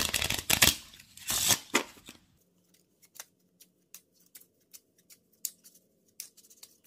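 A deck of playing cards being shuffled by hand: a dense rush of card noise for about the first two seconds, then soft scattered clicks of cards being handled.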